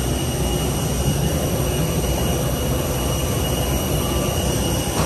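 Jet aircraft engine running steadily: a constant rumble with several steady high whining tones over it.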